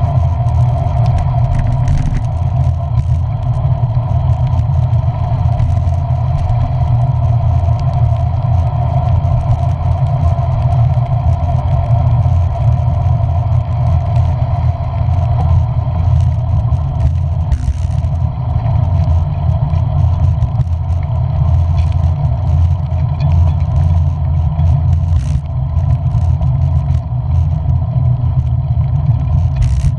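Steady, loud low rumble of a vehicle in motion, with scattered light clicks and clatter.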